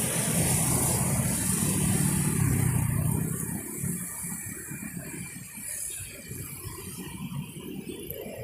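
Road traffic on a wet street: a vehicle engine passes close and is loudest over the first three seconds or so, then the sound drops to lower, steady traffic noise.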